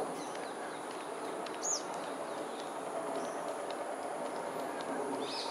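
A steady low background rumble with a steady high hiss over it, and a few short, high bird chirps: a sharp downward whistle just under two seconds in, and another call near the end.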